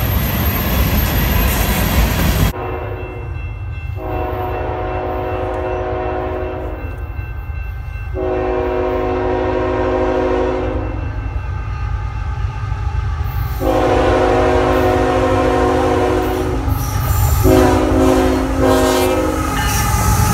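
Freight cars rolling past on the rails, cut off abruptly after a couple of seconds. Then the multi-tone air horn of an approaching CN freight locomotive sounds four blasts, three long and a shorter last one, for a road crossing, over the steady low rumble of the oncoming train, which grows louder near the end as the locomotives reach the microphone.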